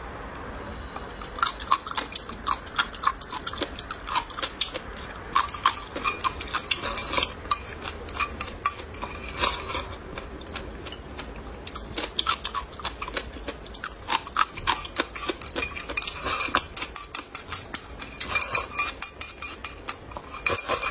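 Chopsticks clicking and scraping against a porcelain bowl as rice porridge is shovelled into the mouth, with chewing between. The taps come in quick runs, fastest near the end.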